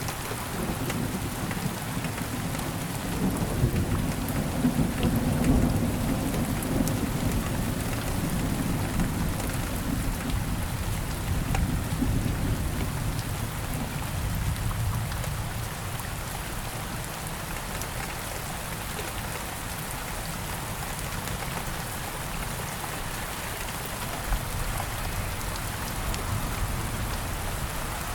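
Steady rain falling, with individual drops ticking. A long low rumble of thunder swells over the first few seconds and dies away about halfway through.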